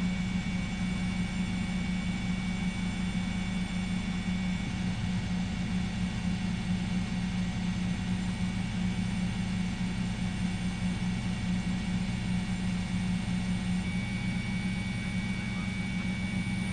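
Steady engine and rotor drone of a helicopter heard from on board, a constant low hum with a thin high whine above it.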